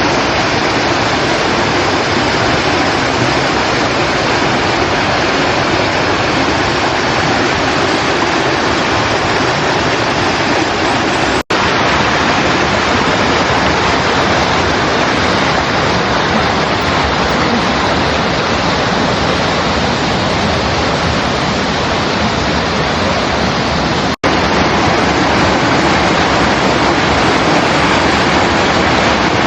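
Mountain stream rushing over rocks: a loud, steady rush of water. It breaks off for an instant twice.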